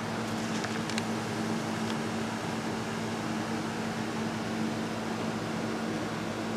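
Steady machine hum with a constant low tone, like a running fan, with a few faint small clicks in the first two seconds.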